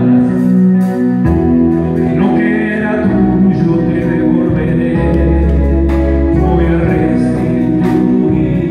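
Live gospel band: an electronic keyboard holding chords and a drum kit with cymbal hits, with a man singing into a microphone over them. A deep bass line comes in about three seconds in.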